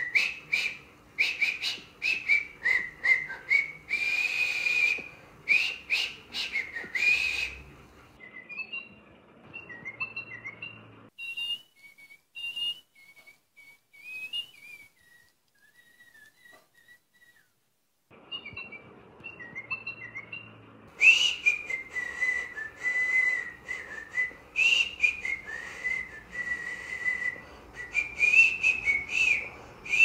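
Little Live Pets electronic toy bird chirping and whistling in quick high tweets. The chirping thins to a few faint tweets and almost stops in the middle, then comes back busy and loud for the last third.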